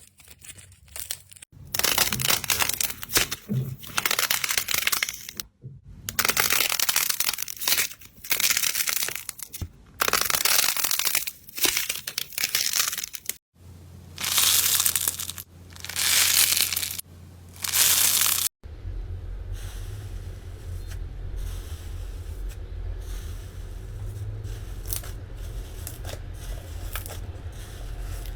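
Slime being squeezed, pressed and pulled by hand, giving crackling, crunching bursts a second or two long. About two-thirds of the way in it turns to a quieter stretch of faint clicks over a low hum.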